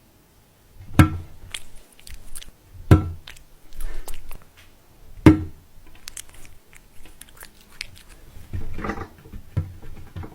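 Three sharp knocks, about two seconds apart, with lighter clicks and rustling between them and a busier patch of noise near the end.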